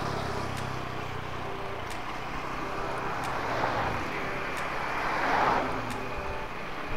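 Riding noise from a bicycle driven by a small friction-drive motor on its tyre, with tyre and wind noise and road traffic. A steady low hum fades after about four seconds, and there is a louder rush about five and a half seconds in.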